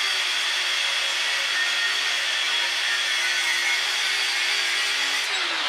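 Power tool, most likely an angle grinder, cutting through a steel coil spring. It is a steady cutting noise with a motor hum that sags slightly under load, and the motor winds down near the end.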